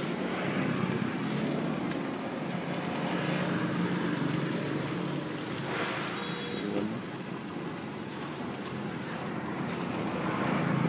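Steady street traffic drone of passing vehicles, with thin plastic carrier bags rustling as foam food boxes are slipped into them and lifted.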